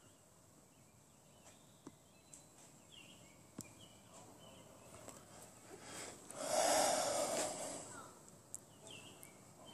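Faint steps on pavement and a few high chirps. About six and a half seconds in, a loud rush of noise lasts about a second and a half.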